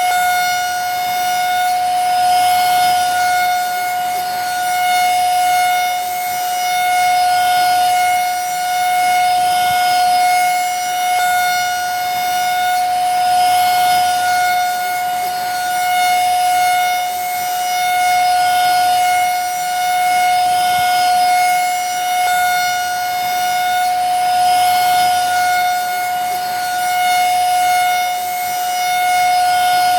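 Vacuum cleaner running steadily: a high motor whine over a rushing hiss of air, swelling and easing gently every couple of seconds.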